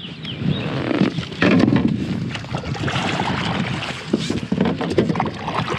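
Kayak being paddled: the paddle blades dip and splash in the water in repeated strokes, with a few short sharp knocks.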